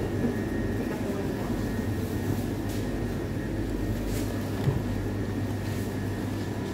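Steady low rumble and hum with a faint, steady high whine, and one short knock a little over four and a half seconds in.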